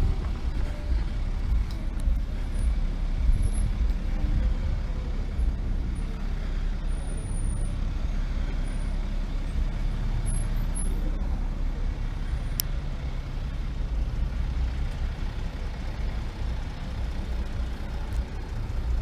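Motorcycle engine running and wind rumbling on the rider-mounted camera's microphone while riding at a steady pace.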